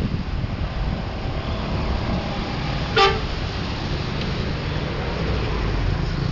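A bus horn gives one short toot about three seconds in, over the steady rumble of passing traffic.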